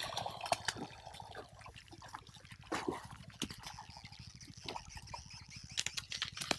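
A hooked fish splashing in the water, with scattered sharp knocks and rustles; the strokes come thicker and louder near the end as it is hauled out onto the bank.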